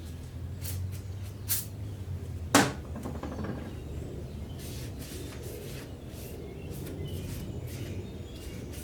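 Light metallic clicks and clinks of a thrust main bearing shell being handled and pressed into place in a 351 Windsor block, with a sharper knock about two and a half seconds in and a run of lighter clicks later on.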